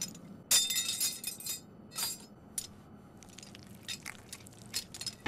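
Anime sound effects of metal weapons: a cluster of sharp, ringing clinks about half a second in, then a few single sharp clinks spaced apart.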